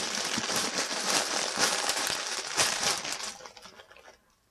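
Plastic yarn packaging being crinkled by hand: a dense, crackly rustle that dies away in the last second.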